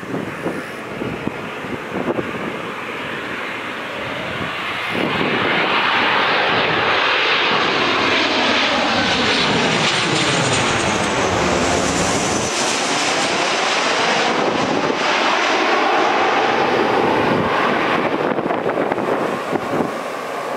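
Boeing 737-800 airliner's CFM56-7B jet engines on landing approach as the plane passes low overhead. A rushing sound swells about five seconds in, sweeps in pitch as the jet goes overhead near the middle, and eases off near the end.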